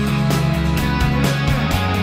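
Rock background music with guitar over a steady drum beat.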